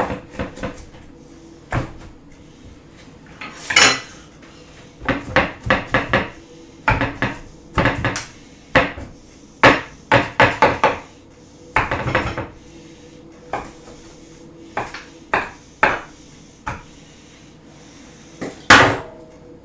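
Chef's knife chopping on a cutting board: irregular sharp knocks, some in quick runs of several strokes, the loudest one near the end.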